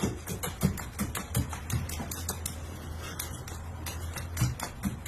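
A quick, irregular series of sharp clicks or taps, several a second, over a low steady hum.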